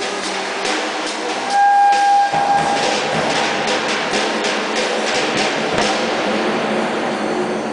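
Vacuum cleaner running, its wand held against a bass drum, giving a rushing noise with shifting whistle tones, loudest about two seconds in, while a drum kit is played with quick drum and cymbal hits.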